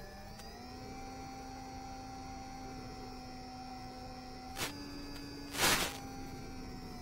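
Steady electrical whine with several even tones from the FPV wing's motor and electronics, heard over the analog video feed's audio; it steps up in pitch about half a second in and holds. Two short bursts of noise break in near the end, the second the louder.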